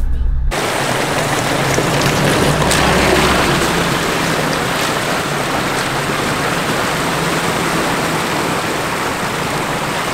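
Shallow creek water rushing over rocks as a Nissan Navara ute drives through the crossing, its tyres churning the water and its engine running low underneath. The sound comes in suddenly about half a second in, replacing music.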